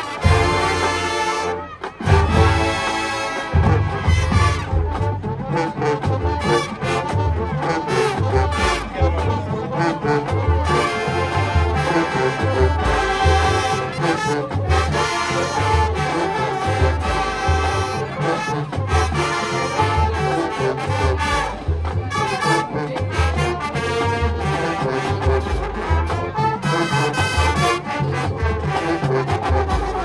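High school marching band playing: brass section with drumline. It comes in with a loud full-band hit at the start, then carries on over a steady bass-drum beat.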